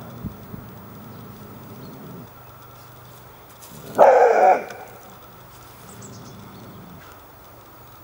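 A mixed-breed dog gives one loud bark about four seconds in.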